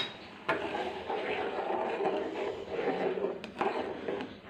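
A metal spoon stirring milk in a metal pan, scraping and knocking against the pan, starting with a sharp clack about half a second in.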